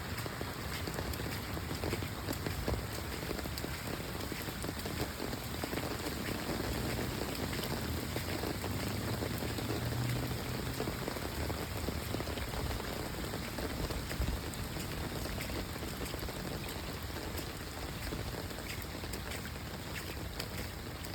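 Rain falling steadily, an even hiss with a low rumble underneath.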